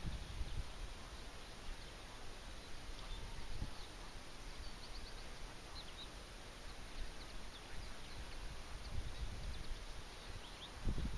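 Wind buffeting the microphone in a low rumble that swells in a gust near the end, with faint short bird chirps now and then.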